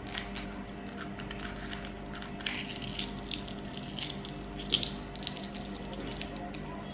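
Shell of a hard-boiled egg crackling as it is cracked and peeled by hand: a run of small, quick crackles and clicks, with one sharper snap about two-thirds of the way through.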